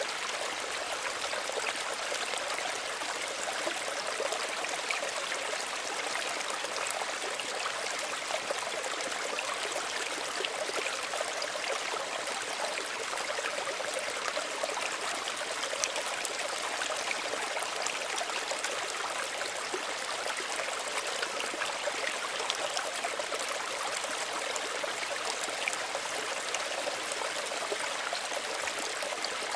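Small stream running steadily over stones, a continuous babble and trickle of water.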